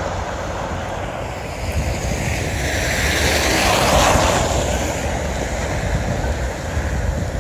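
A car driving past on a snow-covered street, its tyres hissing through slush, rising to a peak about four seconds in and then fading. Wind buffets the microphone throughout.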